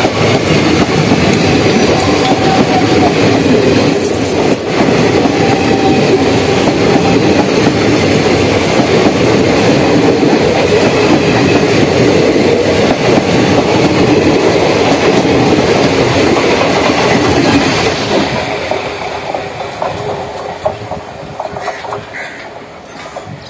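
Passenger coaches of an express train rushing past close by: a loud, steady rumble of wheels on the track. From about 18 seconds in it fades away as the last coach passes and the train draws off.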